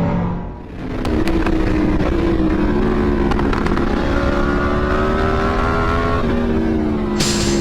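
Sport motorcycle engine accelerating, its pitch climbing steadily, dropping suddenly about six seconds in as it shifts up a gear, then climbing again.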